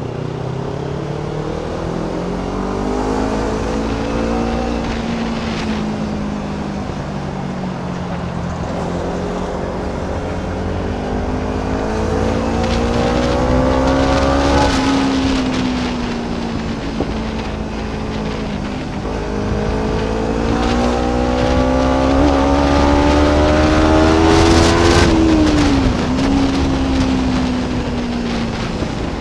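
Kawasaki Ninja 300's parallel-twin engine pulling under throttle. Its pitch climbs slowly twice and falls back each time the throttle closes, with a quick dip and recovery near the end. Wind rush on the microphone rises at each peak.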